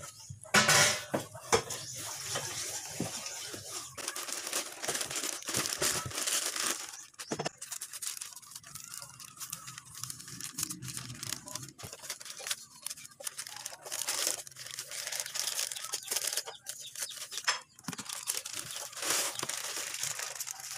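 Plastic courier pouch crinkling, crackling and tearing open by hand, then bubble wrap rustling as the wrapped item is handled near the end.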